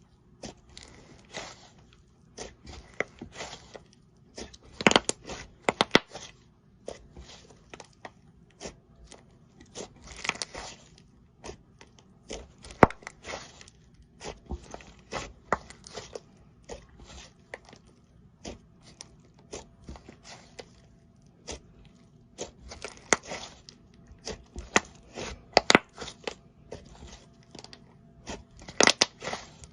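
Slime being squeezed and worked by hand, giving irregular short sticky crackles and pops, with a few louder snaps.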